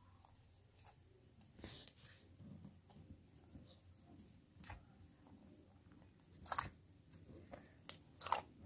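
Clear slime being squished and poked by hand for ASMR: faint, scattered sticky clicks and squelches, a few of them louder, about two seconds in, near the middle and near the end.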